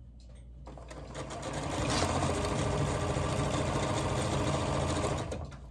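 Electric sewing machine stitching a seam to join two log cabin quilt blocks. It starts about a second in, speeds up to a steady run, then slows and stops just before the end.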